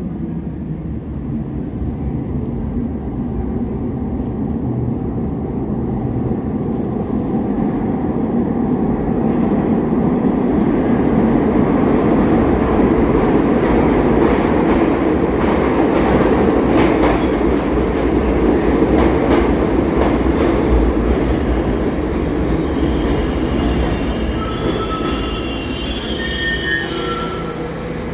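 New York City subway train running on the rails: a steady rumble that builds and then eases, with scattered clicks from the wheels and track. Near the end come short high-pitched wheel squeals.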